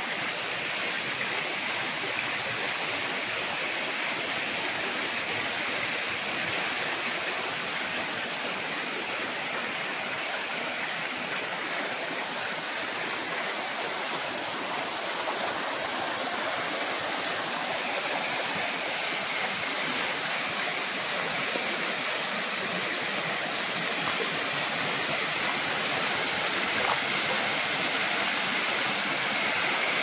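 Shallow mountain stream running over stones: a steady, even rush of water that grows somewhat louder over the last several seconds.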